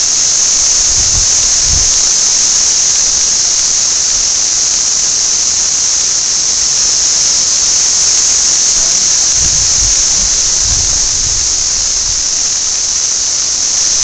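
Dense chorus of periodical (17-year) cicadas, a loud, steady high-pitched drone. A few low rumbles come about a second in and again near ten seconds.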